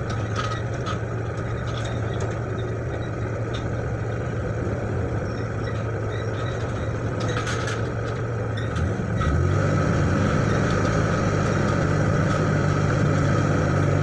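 Small diesel dump truck's engine running steadily, then stepping up to a higher, louder pitch about nine seconds in as the truck pulls away.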